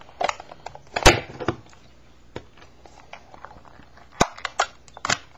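A rubber band being pulled off a small metal Altoids tin and the tin handled, giving a string of sharp clicks and snaps, the loudest about a second in and a quick cluster near the end.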